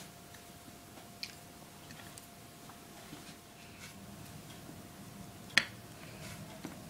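Sparse light taps and clicks from pressing a cookie cutter through rolled mathri dough and handling the cut pieces, with one sharper click about five and a half seconds in, over a faint steady hum.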